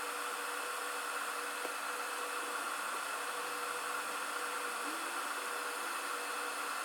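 Steady airy hiss, like a small fan or blower running at a soldering bench, with faint steady hums under it.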